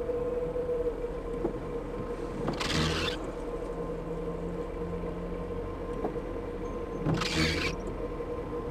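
Inside a car's cabin, stopped with the engine idling: a steady low hum. Twice, about four and a half seconds apart, comes a brief sweep of the windscreen wipers on intermittent in light rain.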